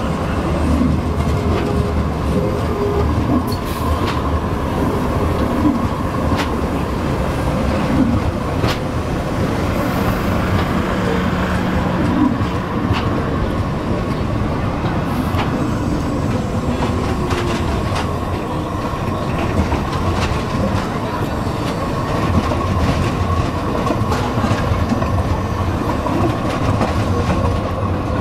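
Long multi-car Stadtbahn tram trains rolling past at low speed, wheels clacking over rail joints and points. A steady rumble runs throughout, with a faint steady whine on top.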